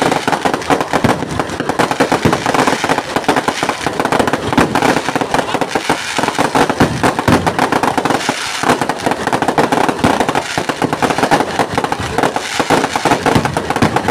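A fireworks display going off: loud, dense crackling and popping from many aerial bursts at once, without a pause.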